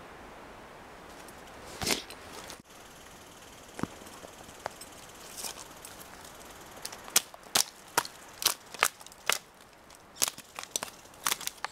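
Dry dead twigs snapping as they are broken up: one sharp crack about two seconds in, then a quick irregular run of crisp snaps, two or three a second, through the second half.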